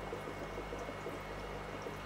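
Aquarium water bubbling and trickling steadily from the tank's aeration, with a low steady hum beneath it.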